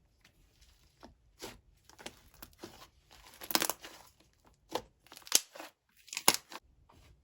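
Slime being squished and stretched by hand, giving irregular crackles and small pops, loudest about halfway through.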